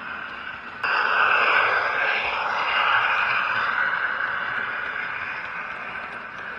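Dapol Class 52 'Western' diesel-hydraulic model locomotive with built-in sound running past with its coaches. Its diesel engine sound and the wheels on the track come in suddenly about a second in, then fade gradually as it runs by.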